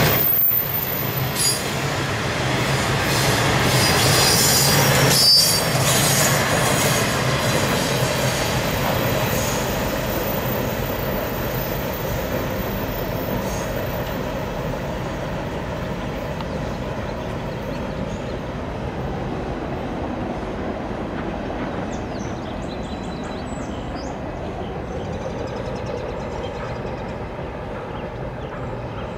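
Freight cars of a CSX welded-rail train rolling past on steel wheels, with high wheel squeal in the first few seconds. The sound fades steadily as the last cars move away.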